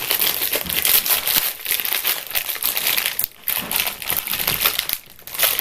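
Plastic instant-noodle packet crinkling and rustling as it is handled and opened, with two short breaks past halfway and near the end.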